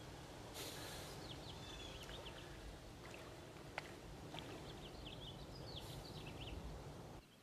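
Faint outdoor ambience: a steady low rumble with water swishing in a swimming pool, and two short runs of high bird chirps.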